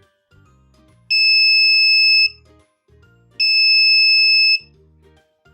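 Electronic buzzer of a breadboard warning-signal circuit beeping: two long, high-pitched steady beeps, each just over a second and about a second apart, over background music.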